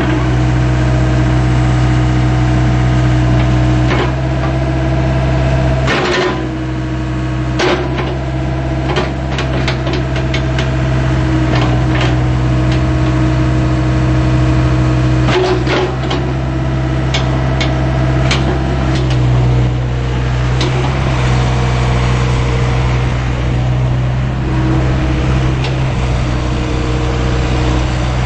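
John Deere 80 midi hydraulic excavator's diesel engine running steadily, with a series of sharp knocks and clanks from the machine: a cluster about six seconds in, a quick run over the next few seconds, and more near the middle.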